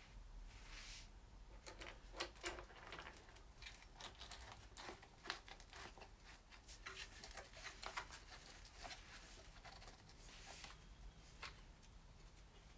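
Faint, irregular clicks and scrapes as an Akrapovic carbon-fibre slip-on silencer is twisted and pushed onto a motorcycle's exhaust link pipe, with a couple of brief rustles.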